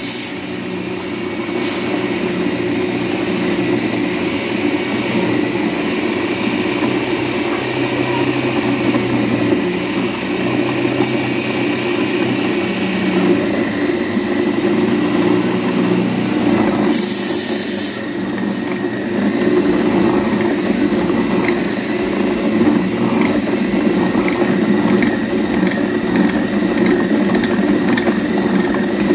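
Bajaj food processor's motor running steadily as it kneads wheat-flour dough in its bowl, with a short hiss a little over halfway through.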